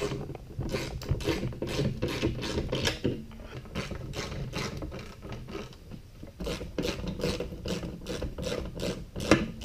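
A wrench tightening lock nuts onto carriage bolts that hold aluminum brackets, while pliers grip the bolts: a string of quick metal clicks and scrapes, about two or three a second.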